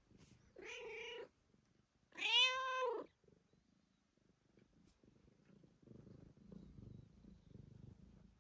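Domestic cat meowing twice, the second meow louder and rising then falling in pitch, then purring quietly from about six seconds in.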